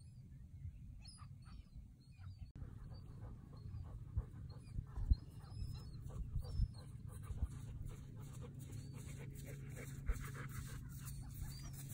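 Airedale terrier panting in quick, even breaths, most plainly in the second half, with a few low thumps around the middle. A few short high bird chirps come in the first couple of seconds.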